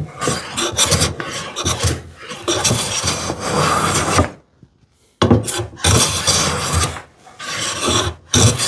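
No. 5 hand plane taking shavings along the edge of a poplar board to joint it: a long run of strokes, a pause about four seconds in, then three shorter strokes.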